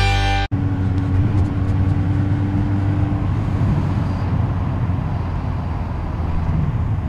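Rock music cuts off about half a second in, giving way to the steady running of a Yamaha XJ600 Seca II's air-cooled inline-four engine at cruising speed, mixed with wind rush.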